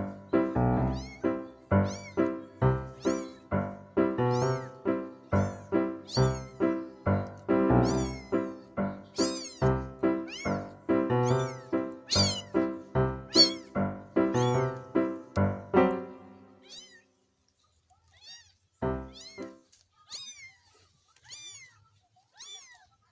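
Kittens mewing over and over in short high-pitched calls, roughly one or two a second, over background music with a steady beat. The music stops about two-thirds of the way in and the mewing carries on alone.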